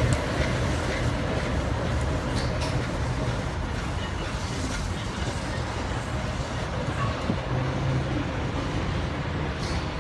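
Steady low rumble of a train of vintage BMT BU gate cars running away along the tracks, heard from a distance, with city traffic noise mixed in.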